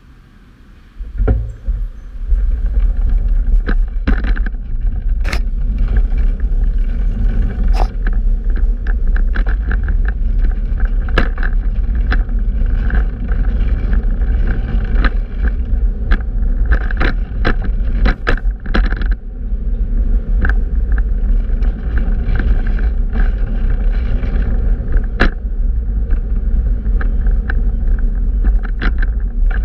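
Wind buffeting the microphone and road rumble from a fixed-gear bicycle ride, with frequent sharp clicks and rattles. The noise comes in suddenly about a second in.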